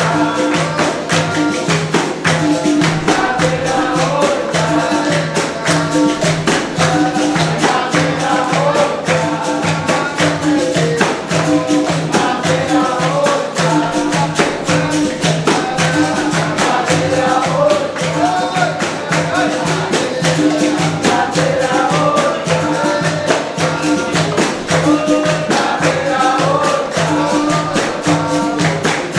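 Capoeira roda music: group singing over berimbau and pandeiro, with a steady, even rhythm throughout.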